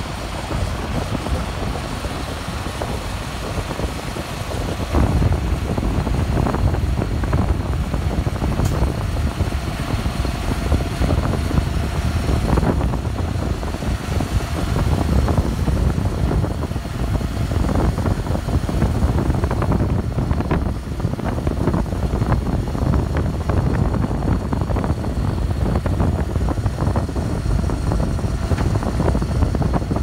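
Tractor engine running steadily as it tows a pull-type cement spreader, under heavy wind buffeting the microphone that grows louder about five seconds in.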